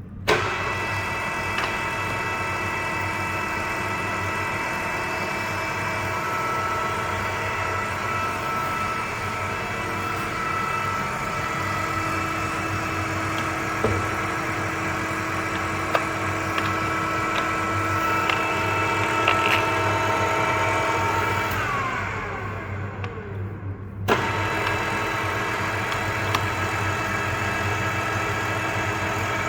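Ooya RE-1225H radial arm drill's 5 HP spindle motor and gear head switching on with a clunk and running with a steady geared whine. The whine falls in pitch as the spindle winds down, then the motor is switched on again about 24 seconds in and starts winding down again at the end.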